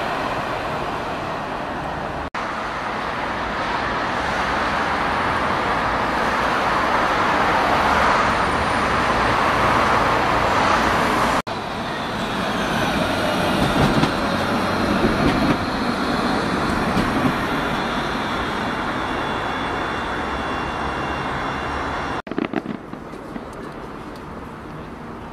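Electric light-rail trams running on their rails: a steady rushing rumble from wheels and motors that swells as a tram passes close by. Near the end it is fainter, with a few light knocks.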